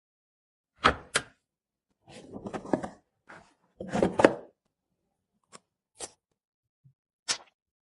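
A series of sharp clicks and short knocking rattles, separated by silence, from computer hardware being handled and fitted together during assembly. A pair of clicks comes about a second in, then two louder rattling knocks, then a few lone clicks.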